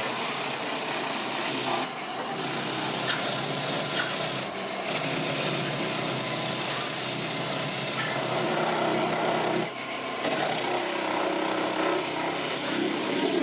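Steady rasping and scraping, broken by brief pauses about two, four and a half and ten seconds in: a tool buffing the rubber of a truck tire for a sidewall repair.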